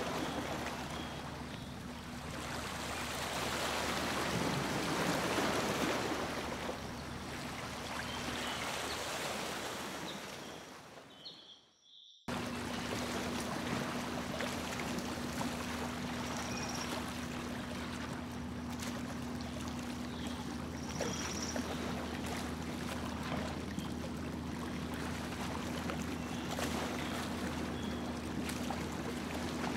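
Motorboat under way: a steady motor hum under water rushing and splashing along the hull. The sound cuts out for a moment about eleven seconds in, then carries on unchanged.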